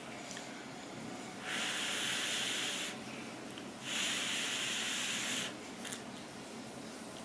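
Two long slurps of ramyeon noodles, each lasting about a second and a half, with faint clicks of chewing or chopsticks between them.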